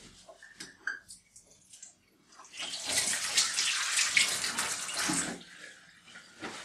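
A water tap running with hands being rinsed under it for about three seconds, starting a couple of seconds in, after a few faint knocks.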